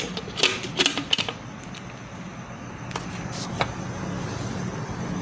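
Plastic lid being pressed onto a blender jar: a cluster of clicks and knocks in the first second or so, then a few more about three seconds in, over a steady low hum.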